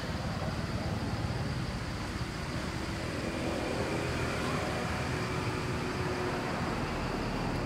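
Steady outdoor background noise: a low rumble with an even hiss over it, and no distinct events standing out.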